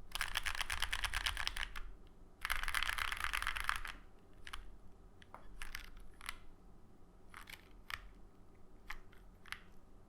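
Mechanical keyboard typing: a CreateKeebs Thera 75 with lubed 43 Studio OPBlack linear switches on a POM plate and GMK keycaps. Two quick rolling runs of keystrokes across the home row, then slower single key presses spaced a second or so apart.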